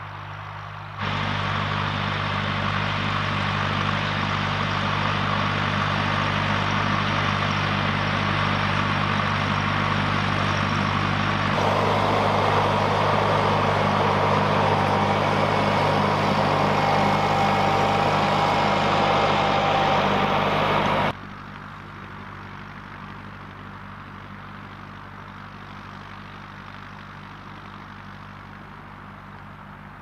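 Fendt Vario 415 tractor's four-cylinder diesel engine running steadily under load while pulling a mounted reversible plough through the soil. The sound jumps louder about a second in and again near the middle, then drops sharply to a fainter, more distant level about two-thirds of the way through.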